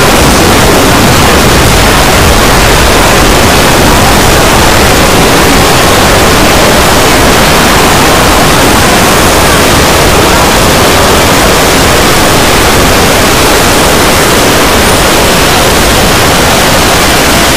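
Very loud, steady wall of distorted noise like static, from the soundtracks of dozens of layered video clips summed together until no single sound stands out.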